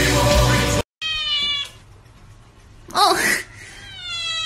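Grey kitten meowing: a short falling meow just after a second in, and a long drawn-out meow starting near the end.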